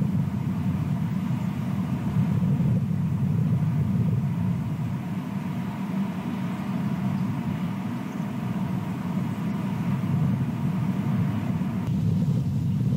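Steady low rumble picked up by an outdoor webcam microphone, with no distinct events; the background shifts slightly near the end.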